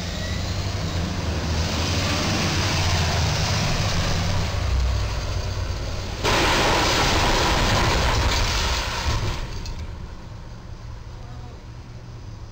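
Street traffic: vehicle engines running and passing, with a rental box truck driving up. About six seconds in, a loud rushing noise starts abruptly, lasts about three seconds and then fades.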